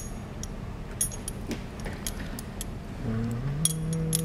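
Metal pieces of a hand-held wire disentanglement puzzle clicking and clinking against each other, a dozen or so light taps. About three seconds in, a low steady hum from a man's voice starts and steps up in pitch.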